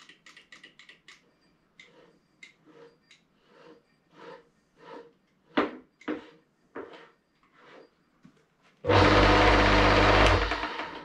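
A run of short squeaky strokes about twice a second as the old woodworking lathe's headstock is oiled. About nine seconds in, the lathe's old split-phase induction motor switches on with a loud hum, runs for under two seconds, then is switched off and winds down.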